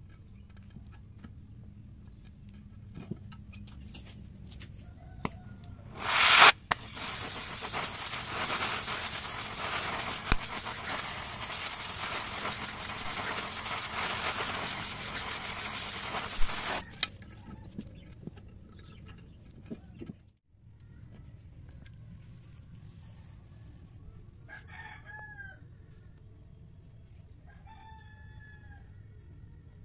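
Gas torch flaring on with a loud pop about six seconds in, then hissing steadily for about ten seconds as it heats a steel tool bit red-hot, and cutting off abruptly. Near the end a rooster crows.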